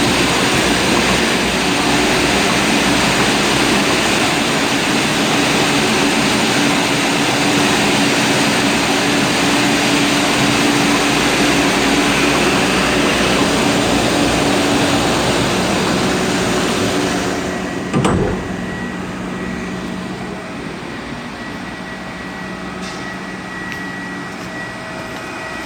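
Loud, steady running noise of reverse-osmosis plant pumps and motors, with a steady hum underneath. About 18 seconds in it drops off with a single thump, leaving a quieter hum with a steady high tone.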